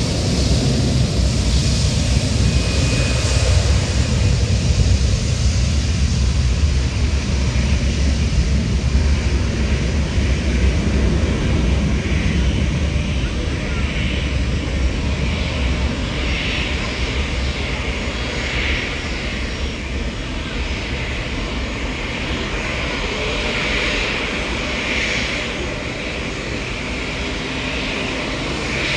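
Airliner engines running with a low, steady rumble that is loudest in the first half and slowly eases off, over a constant hiss.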